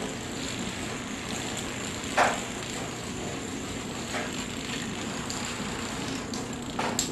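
Dominoes toppling in a continuous fast clatter of small clicks, with a sharper knock about two seconds in and another near the end.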